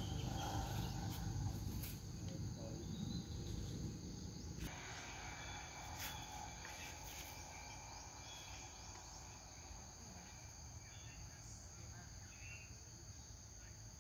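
Steady insect chorus, a high even drone. A low rumble underlies the first four and a half seconds and stops abruptly, and a few sharp clicks fall in the first six seconds.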